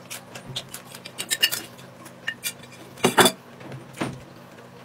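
Eating sounds: a metal fork clicking against a plate of spicy ramen noodles as they are forked into the mouth and chewed. A louder noisy sound comes just after three seconds in, with a smaller one about a second later.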